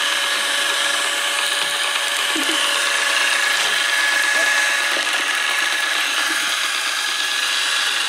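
Kitfort KT-533 robot vacuum running close up: its suction fan's steady hiss with a constant motor whine as it moves across a wooden surface.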